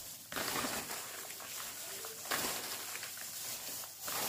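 Gloved hands tossing and squeezing a shredded cabbage, carrot and bean-sprout salad in a bowl: a continuous rustling with a few louder squeezes.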